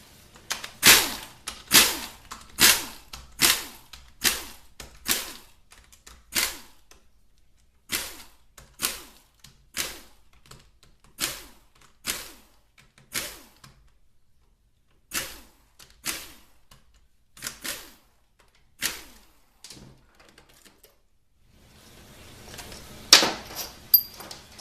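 Sharp metallic clicks, about one a second in runs with short pauses, from the 10mm bolts being taken out of a 4L60E automatic transmission.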